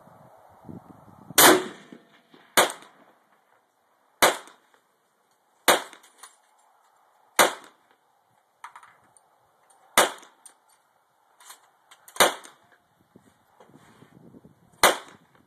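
Gunshots: about eight sharp reports, one every one to two and a half seconds, the first the loudest, with a few fainter cracks between them.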